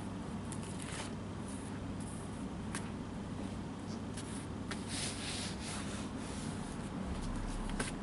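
Linen hand-sewing thread rubbing and rustling as it is drawn and twisted through the fingers, with light ticks and a longer brushing rub about five seconds in. A steady low hum underneath.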